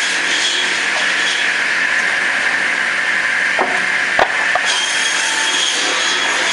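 Automatic cross-cut saw running steadily as it cuts wooden slabs into firewood lengths. A few knocks sound as wood comes through, the sharpest about four seconds in.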